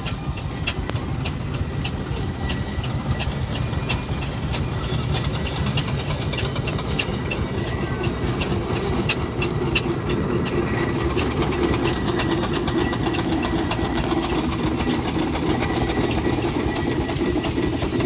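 Train running on rails: a steady low rumble with regular clicking, and a hum that grows stronger about halfway through.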